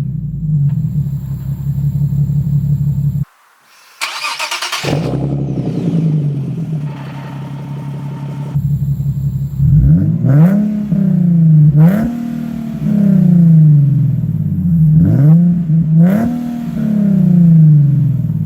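Nissan 370Z 3.7-litre V6 through AAM short-tail exhausts, idling with a deep, loud burble. After a brief break about three seconds in, the engine starts again with a sharp flare and settles back to idle. It is then revved four times in the second half, each rev rising and falling back to idle.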